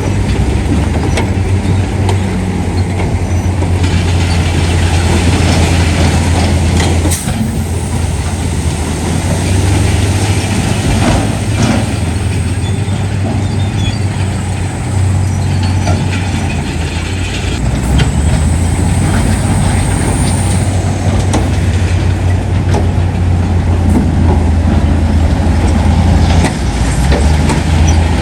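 Heavy diesel earthmoving machinery running, a steady low engine drone that shifts in pitch every few seconds, with a few metallic clanks.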